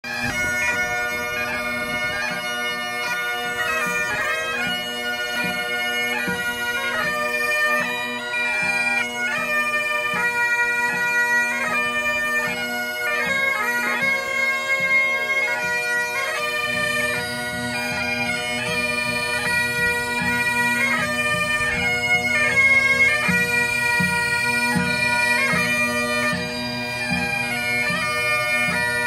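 Several bagpipes playing a tune together over their steady drone, with a drum beating time underneath that grows more prominent about halfway through.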